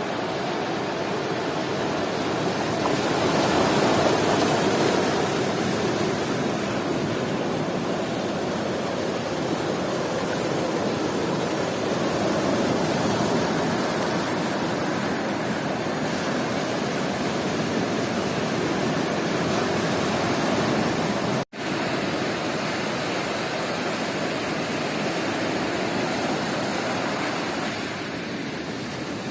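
Sea surf breaking on a beach: a steady rush of waves that swells a few seconds in, with a momentary cut to silence about two-thirds of the way through.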